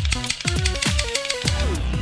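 Electronic music: a stepping synth melody over deep kick-drum beats that drop sharply in pitch.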